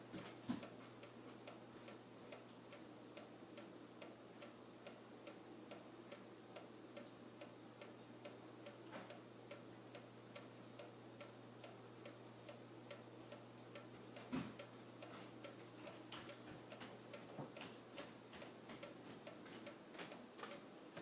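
Faint, regular ticking over a low steady hum, with a louder knock about half a second in and another around fourteen seconds in.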